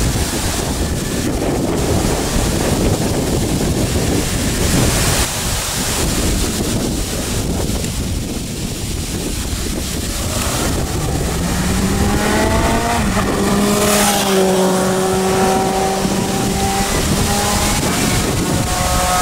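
Wind buffeting the microphone, then about eleven seconds in, loud air horns start sounding in long held notes that slide up at first, from an approaching convoy of trucks led by a fire engine.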